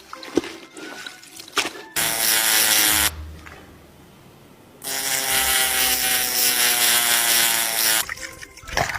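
A rapid mechanical rattling whirr in two loud bursts, one of about a second and a longer one of about three seconds, with a few sharp clicks before them.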